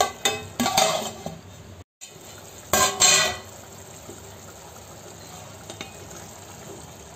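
Tomato and egg curry simmering on a low gas flame in a steel pot: a steady, soft bubbling hiss. In the first two seconds a few clinks and knocks against the pot, then one brief louder clatter about three seconds in.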